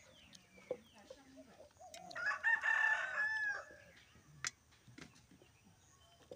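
A rooster crowing once, about two seconds in: a single call lasting about a second and a half. A few light clicks can be heard around it.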